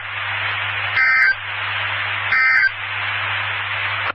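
NOAA Weather Radio SAME end-of-message code: short, harsh two-tone digital data bursts, one about a second in and another about two and a half seconds in, over steady radio hiss and a low hum. The bursts mark the end of the alert broadcast.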